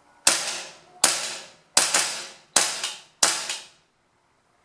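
WE M4 RIS gas blowback airsoft rifle firing five separate shots, about one every three-quarters of a second, each a sharp crack with the bolt cycling. It is a test after filing the worn trigger, hammer and sear hooks that made it fire full-auto on semi, a fix the owner judges better but not cured.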